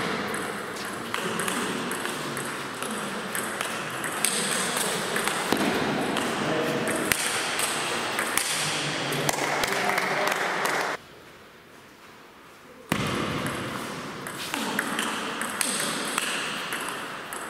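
Table tennis ball clicking back and forth between bats and table in a rally, with a quieter break of about two seconds partway through.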